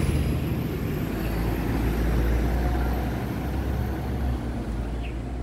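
Road traffic passing close by: a low engine and tyre rumble that slowly fades, with a faint high whine above it.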